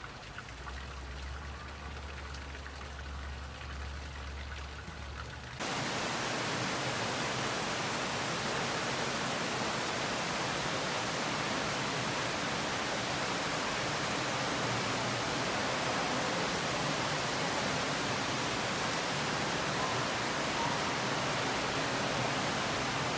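A low hum at first, then, suddenly about five and a half seconds in, a steady rushing hiss of water circulating in a large indoor fish tank.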